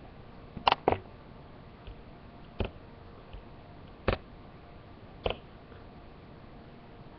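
A few short, sharp clicks: two close together about a second in, then three more single clicks spaced a second or so apart, over faint steady background hiss.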